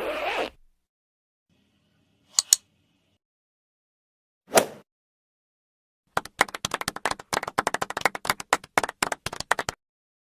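A string of separate stock sound effects with dead silence between them: a short noise burst, a single sharp click about two seconds later, a brief swish, then about three and a half seconds of rapid clapping that stops abruptly.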